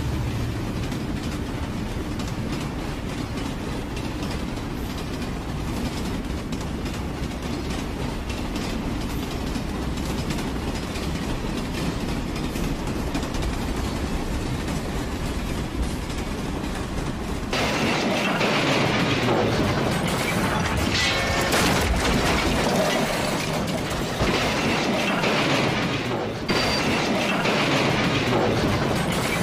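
Train running on rails with a steady rumble; about 17 seconds in it switches suddenly to a louder, brighter rattling clatter of wheels over track.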